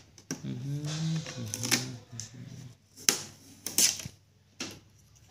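A few sharp plastic clicks and knocks as an Epson L3110 ink-tank printer's casing is handled, coming at uneven intervals through the second half. Before them, a brief murmur of a man's voice.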